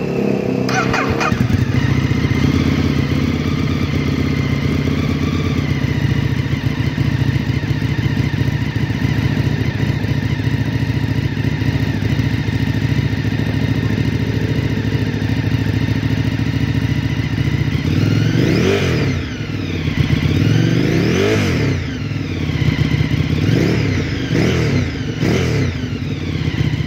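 Ducati Streetfighter 848's L-twin engine breathing through an Arrow aftermarket exhaust, idling steadily while the bike stands still. In the last third it is revved in several sharp throttle blips, each rising and dropping back to idle.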